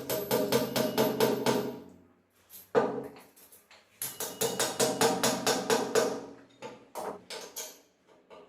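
Rapid hammer blows, about six a second in bursts of a second or two, with a ringing pitch under them; the strikes thin out to single blows near the end.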